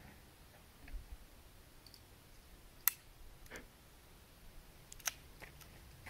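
A few sharp metallic clicks from a firearm's action being worked, the sharpest about three seconds in, with the gun jammed on its first shell.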